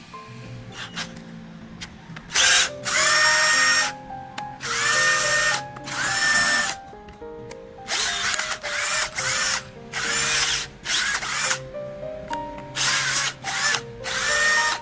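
Cordless brushed drill, its burnt-out motor just replaced, run by the trigger in a series of short bursts; each spins up quickly to a steady high whine, showing the new motor turning freely. Background music plays underneath.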